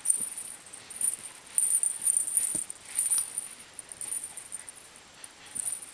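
Soft, high-pitched jingling that comes in short, irregular bursts, with a few faint clicks.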